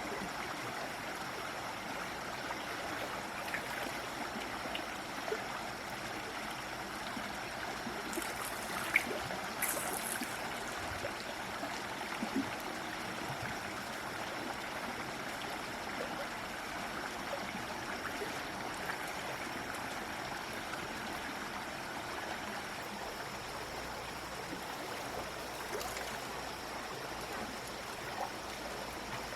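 Steady rushing of running water, like a stream, with a few faint ticks and one sharp click about nine seconds in.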